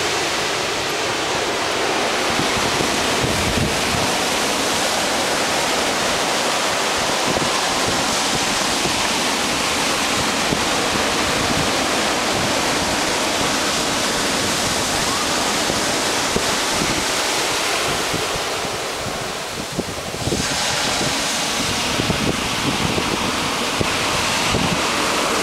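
Ocean surf breaking and washing in, a steady wash of noise that dips briefly about three-quarters of the way through.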